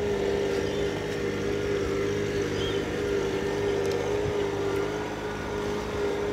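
A vehicle engine idling steadily: a constant drone with one steady tone standing out, unchanging throughout.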